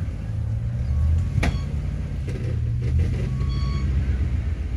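A 4x4 off-road vehicle's engine running steadily at low revs, with one sharp knock about one and a half seconds in and a brief high squeak a little after three and a half seconds.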